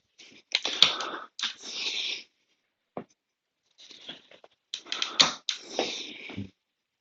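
A man's forceful, noisy breathing and strained exhalations in irregular bursts while exerting himself on a set of pull-ups.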